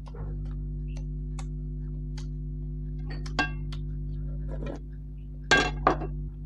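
Eating-table sounds: a small white soup bowl clinks as it is handled, with a sharp clink a little past halfway and louder clinks around five and a half seconds as it is set back down on the table. A steady low hum and faint, regular ticking run underneath.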